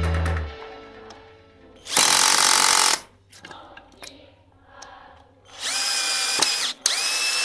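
JLD J-12S 12-volt cordless drill driving screws into a wooden plank: a run of about a second some two seconds in, then a longer run from near six seconds on, its motor whine rising in pitch as it spins up, with a brief stop partway. Background music fades out at the very start.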